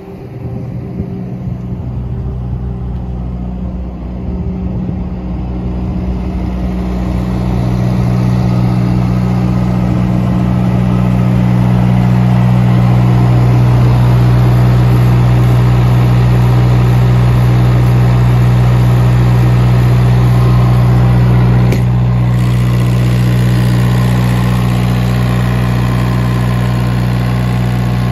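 Thermo King SL200 trailer refrigeration unit running, its diesel engine giving a steady, even hum. It grows louder over the first eight seconds or so, with a brief tick a little past the two-thirds mark.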